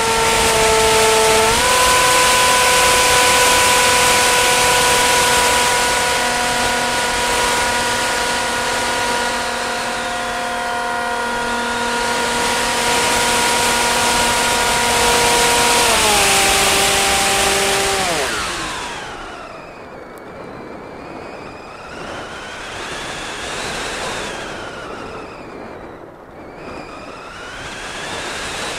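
Motor and propeller of a model aircraft, heard from its onboard camera: a steady high whine that steps up in pitch about a second and a half in and steps down after about sixteen seconds. The whine cuts off about eighteen seconds in, leaving the rush of air past the airframe with faint rising and falling whines.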